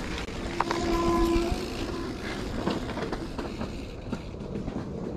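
Mountain bike rolling down a dirt trail: tyres crunching over the ground with the bike rattling and clicking over bumps, and wind on the microphone. There is a short steady tone about half a second in.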